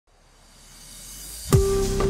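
Background music: a rising swell fades in from silence, then the beat drops about one and a half seconds in with a deep kick drum and a held note.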